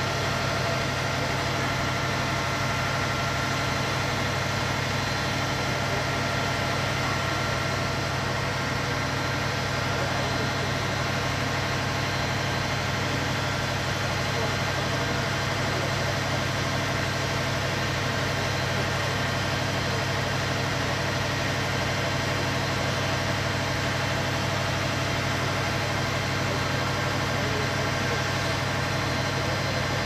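An engine idling steadily: a constant low hum that does not change.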